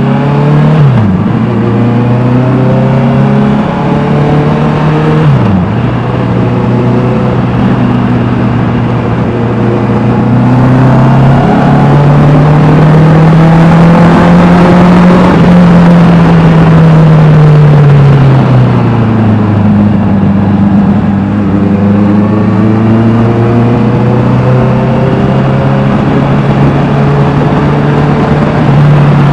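Honda CBR 650R's inline-four engine through an Austin Racing exhaust under way, revving up and shifting gears twice early on, with a sharp drop in pitch at each shift. It then climbs to a higher pitch, eases off slowly to a lower steady note, and begins to rise again near the end.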